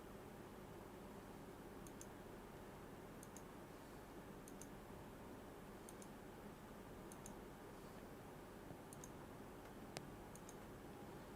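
Near silence with faint, sharp double clicks repeating about every second and a half, and one louder single click near the end.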